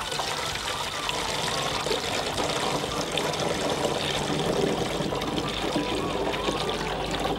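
Liquid poured from a plastic measuring jug through a funnel into a plastic drum: a steady splashing trickle.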